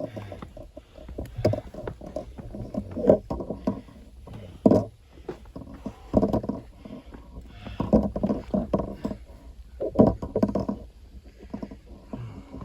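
A hiker's heavy, effortful breathing in irregular bursts every second or two, with scuffing of shoes and gear, while scrambling up rock.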